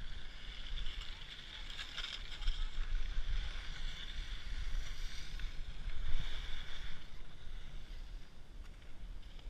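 Wind buffeting an action camera's microphone while skiing, with the rushing scrape of skis on packed snow that eases off about seven seconds in.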